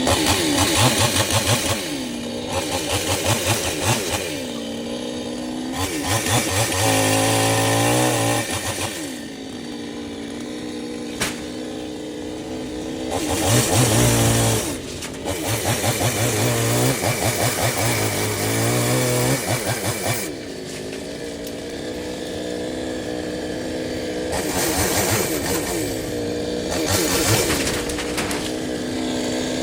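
Chainsaw engine idling and being revved again and again, its pitch swooping up and falling back with each blip of the throttle.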